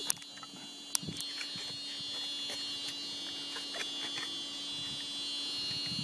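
A couple of sharp clicks, about a second apart near the start, then smaller scattered ticks: handling noise of the camera and the seat's trim parts, over a steady low hum and a high-pitched whine.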